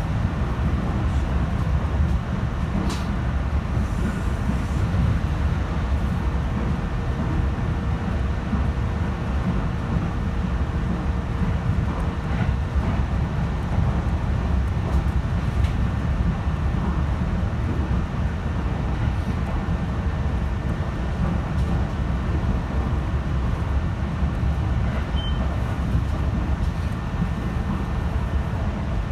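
E129 series electric multiple unit running between stations, heard from inside the car: a steady low rumble of wheels on rail.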